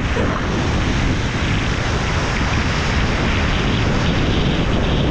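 Steady rush of breaking-wave whitewater churning around a surfboard, heavy with wind and water rumble on the GoPro's microphone.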